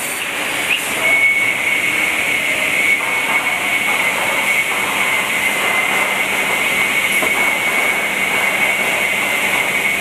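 Automated woodworking machinery running steadily: an even mechanical noise with a constant high-pitched whine over it.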